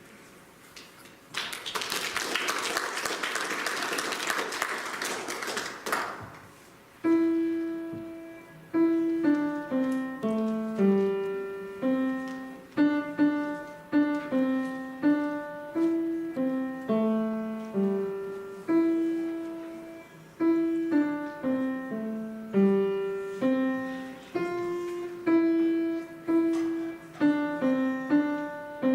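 Audience applauding for about five seconds. Then a piano starts a new piece, playing a simple melody of single sustained notes at an even pace.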